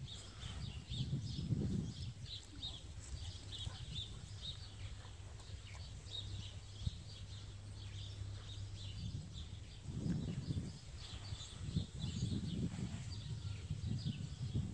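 Small birds chirping over and over, with gusts of wind buffeting the microphone at the start and again from about ten seconds in, over a low steady hum that fades out after about nine seconds.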